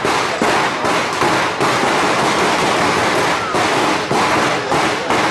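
Many large Perchten cowbells clanging together in a rhythmic din, about two to three beats a second, as the costumed runners swing them.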